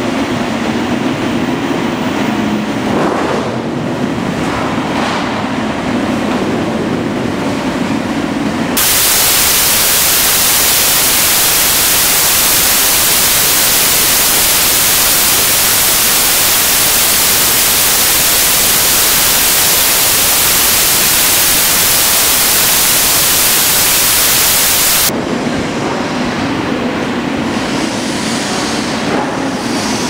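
Steady running noise of an automatic steel-sheet cutting line, with a low hum under it. About nine seconds in, a loud, even hiss like static takes over and cuts off suddenly a few seconds before the end, when the machine noise returns.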